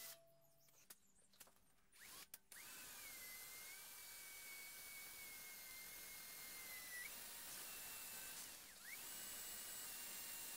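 Cordless drill faintly whining as it bores a 4 mm hole into aluminum, starting about two and a half seconds in. Its pitch sags slightly as it cuts, dips sharply about three-quarters of the way through, then holds steady a little higher.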